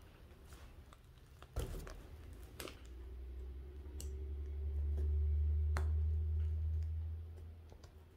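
Thick, mud-like slime being pressed, folded and poked by hand: soft squishing with a few sharp clicks as air pockets pop. A low rumble swells up through the middle and fades again.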